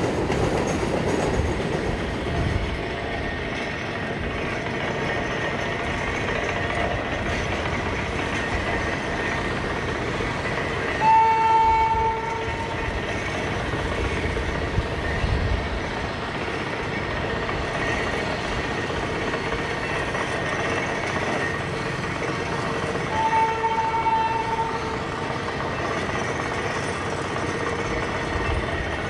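Trains running on the railway tracks with a steady rolling rumble. A train horn sounds twice at one steady pitch: a long blast about eleven seconds in, the loudest sound, and a shorter one about twenty-three seconds in.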